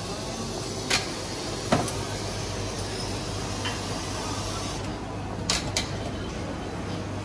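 Steady background noise of a busy room with a low hum, broken by a few short sharp clicks or clinks: one about a second in, one just before two seconds, and two close together about five and a half seconds in.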